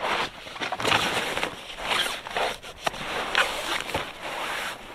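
Inflated nylon sleeping pad (Hyke and Byke Ultralight Appalachian) rustling and scraping against a tent's nylon floor and mesh as it is pushed in through the door, in repeated swishes.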